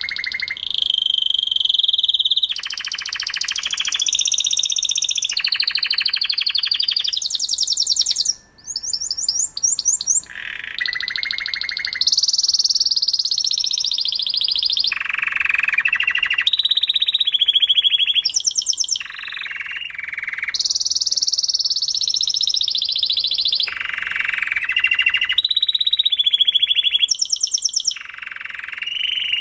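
Domestic canary singing a long, continuous song of rapid trills and rolls, switching to a new phrase every second or two, with a brief break about eight seconds in.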